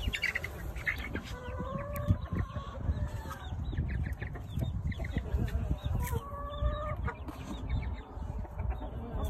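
Chickens clucking: many short calls, with a few longer drawn-out notes in between.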